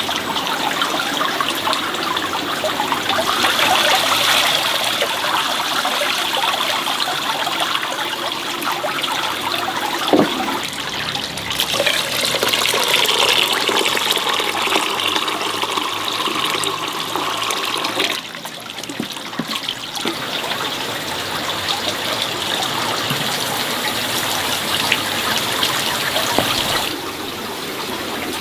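Water running and splashing steadily, with a single knock about ten seconds in; the flow eases twice, once a little after halfway and again near the end.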